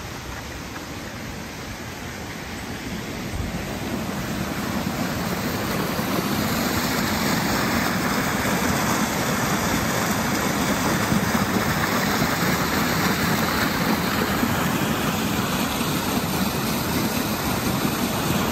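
Small waterfall and creek cascading down a sandy ravine, a steady rush of falling water that grows louder over the first several seconds, then holds steady.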